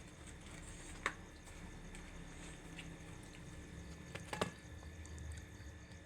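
Close-up eating sounds: wet chewing and mouth noises, with two sharp clicks, about one second and four and a half seconds in.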